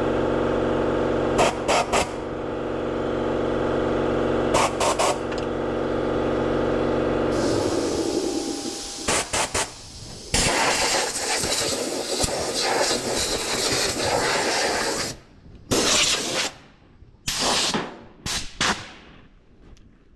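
A steady machine hum with a few sharp clicks cuts off about seven seconds in. A long blast of compressed-air hiss follows, then several short hissing bursts.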